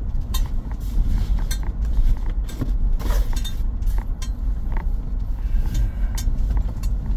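Inside a vehicle's cabin on a rough dirt road: a low rumble of tyres and suspension with frequent clinks and rattles of loose gear. There is a brief louder rush about three seconds in.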